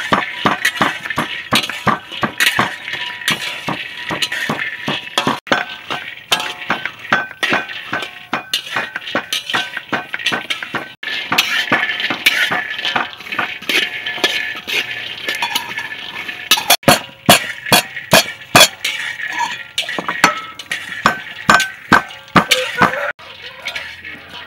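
Kitchen work sounds: a wooden pestle pounding dried shrimp in a wooden mortar, then a metal spatula scraping and clinking against a wok as peanuts are stir-roasted, in a dense run of rapid clicks and knocks.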